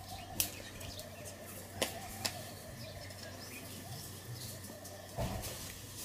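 Water splashing and slapping in a concrete basin as a gray langur paws at it: a few short sharp splashes, then a louder one near the end, over a faint steady outdoor hum.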